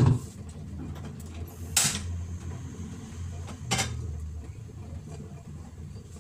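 Kitchen handling noises at a gas stove: a knock, then two short noisy clatters about two seconds apart, over a steady low hum.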